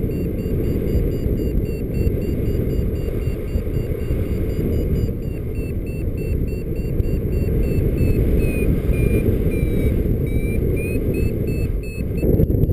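Wind buffeting a paraglider pilot's camera microphone, with a flight variometer beeping rapidly, about three short high beeps a second, its pitch wavering a little in the second half: the vario signalling that the glider is climbing in lift.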